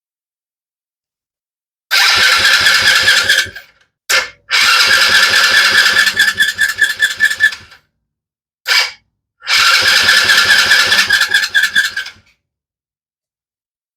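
Kids' Chinese ATV's small engine cranked by its electric starter in three long tries and two short blips, without catching, even with fuel shot down the intake. The engine is turning over slowly.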